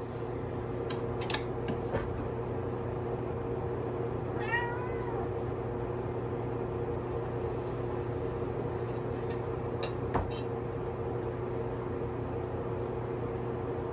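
A steady low hum, with one short animal call about four seconds in that rises and then falls in pitch.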